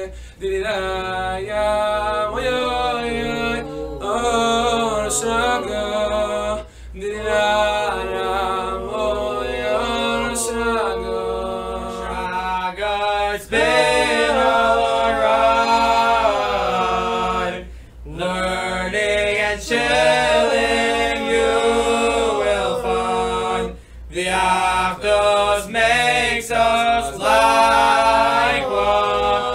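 A cappella singing: a song sung by voices alone, with no instruments, broken by a few brief pauses.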